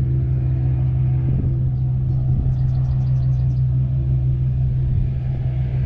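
Steady low motor hum, the Old Town AutoPilot kayak's electric trolling motor running, with wind rumbling on the microphone.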